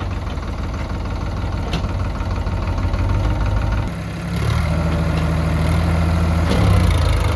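Heavy diesel engine of earth-moving or farm machinery running, growing louder and stronger about four seconds in.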